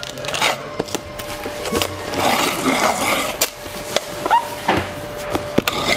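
Products being packed into a cardboard shipping box: irregular knocks and clatter of bottles and items going in, with cardboard rustling. A faint steady tone sounds underneath through most of it.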